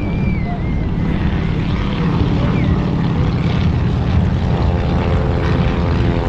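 Aircraft engine noise, a loud, steady drone, with a pitched engine hum becoming clear about four and a half seconds in.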